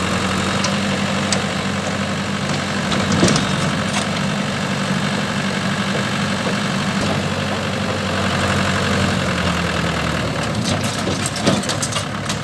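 Swaraj tractor's diesel engine running steadily at idle while its tipping trolley dumps a load of soil, with a few knocks and clatters, more of them near the end as the tractor moves off.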